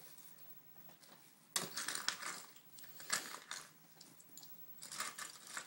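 Loose plastic Lego bricks clattering and rattling as a hand rummages through a box of them, in a few short bursts, the loudest about a second and a half in.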